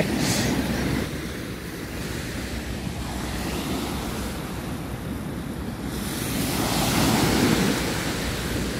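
Wind buffeting the microphone over the steady wash of sea surf on an open beach, louder for a second or two about six seconds in.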